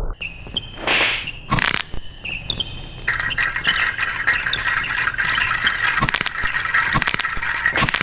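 A string of edited sound effects standing in for a pop song: a few separate short hits and tones, then from about three seconds in a dense, continuous rattling and scraping.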